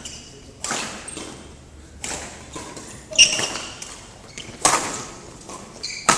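Badminton rally: rackets strike the shuttlecock five times, about one hit every second and a half, each with a short echo from the hall. Sneakers squeak briefly on the court floor around the middle and near the end.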